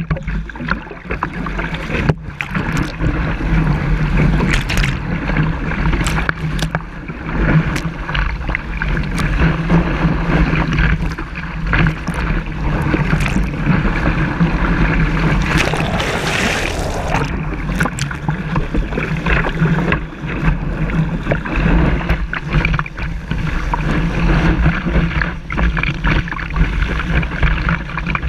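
Kiteboard skimming through waves: water rushes and spray hisses under the board, with sharp knocks, while wind buffets the microphone with a steady low rumble. A louder hiss of spray comes about halfway through.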